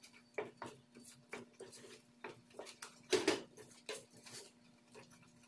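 Wooden spoon stirring thick cassava-flour pirão in a stainless steel pot: a string of irregular soft scrapes and squelches, the loudest stroke a little after three seconds in.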